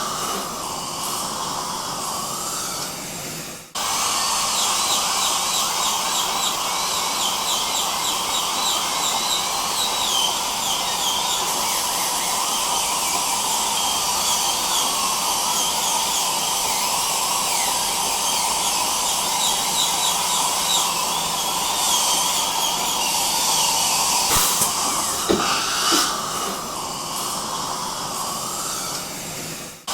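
A dentist's drill whining together with the hiss of dental suction in one steady mix. The whine wavers in pitch now and then. The sound cuts out for a moment about four seconds in and comes straight back.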